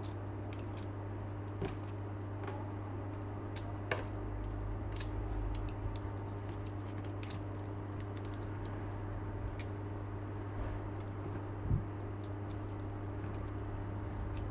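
Scattered small clicks and taps of plastic model-kit parts being handled and fitted together, with a soft low bump near the end, over a steady electrical hum.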